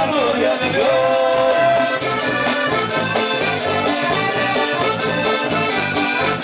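Live vallenato band playing an instrumental passage led by accordion, with guitars, congas and a scraped metal guacharaca keeping a steady beat.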